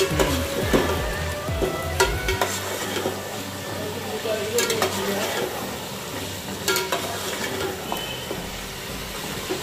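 Mutton frying in oil and masala, sizzling steadily in an aluminium pot while a metal spatula stirs and scrapes through it, with a few sharp knocks of the spatula against the pot.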